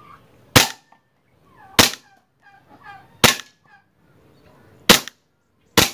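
WE G18 Gforce Edition gas blowback airsoft pistol firing five single semi-auto shots, each a sharp crack, one to one and a half seconds apart. Farm fowl call faintly between the shots.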